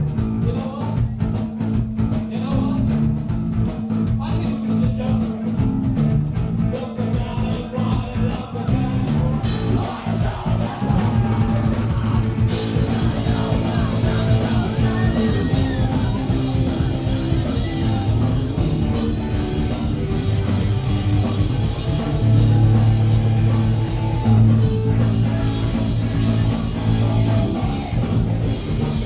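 Live rock band playing: fast, even drum strokes with bass and guitar, the full band coming in louder and denser about twelve seconds in.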